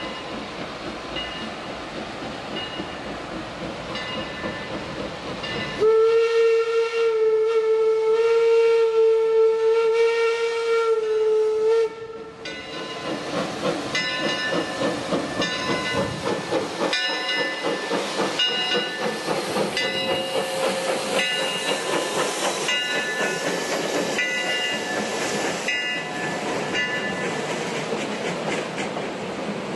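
Wood-burning 4-4-0 steam locomotive Eureka & Palisade No. 4 working hard upgrade, its exhaust chuffing steadily. About six seconds in, one long steam whistle blast of about six seconds is the loudest sound. After it the exhaust beats and steam hiss grow louder as the engine passes close by.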